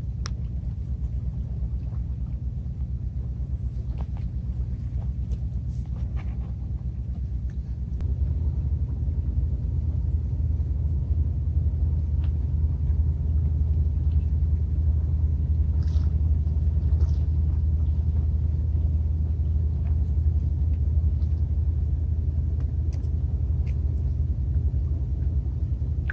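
A steady low rumble, getting louder about eight seconds in, with a few faint light clicks.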